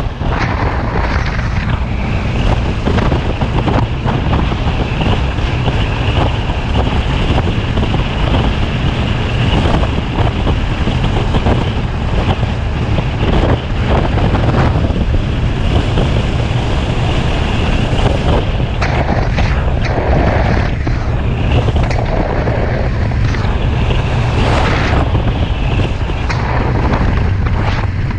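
Wind buffeting the microphone over the steady drone of a Suzuki V-Strom motorcycle under way on a dirt road, with scattered short knocks from the bumps.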